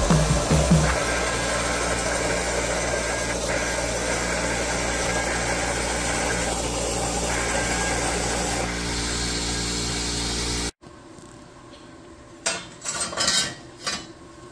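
Homebuilt CNC plasma table cutting steel plate: a steady hiss from the plasma arc with a low machine hum, which stops suddenly about eleven seconds in. A few metal clanks follow as the cut steel parts are lifted off the table's slats.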